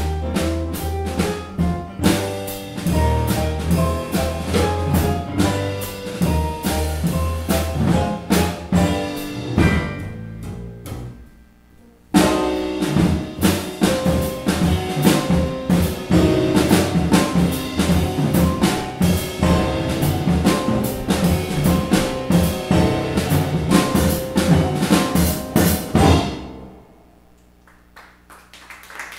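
Live jazz trio of piano, upright double bass and drum kit playing an instrumental piece. About ten seconds in the music thins out and falls to a brief lull, then the full band comes back in with a sharp hit. The piece ends a few seconds before the close.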